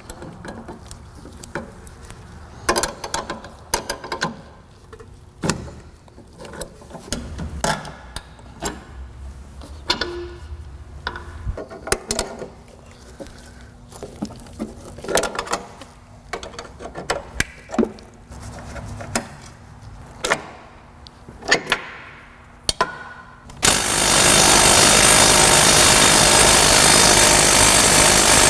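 Hand tools clicking and clanking on metal in scattered knocks while working on a car's front suspension; about 24 seconds in, a pneumatic impact wrench runs loudly and without a break for about five seconds, driving out the suspension bolts.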